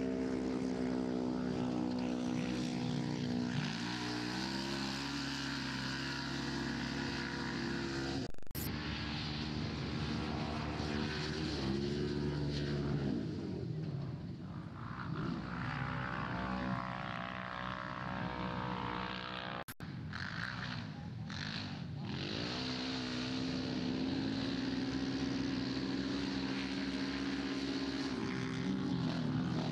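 Side-by-side UTV engines running hard on dirt, the engine note dropping and climbing again several times as the machines slow for corners and accelerate out. The sound breaks off abruptly twice as it switches between passes.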